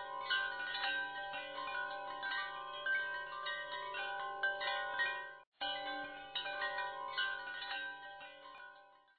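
Wind-chime-like ringing tones: many bell-like notes struck in quick, overlapping succession over a faint low hum. They break off for a moment about halfway through, start again, then fade out near the end.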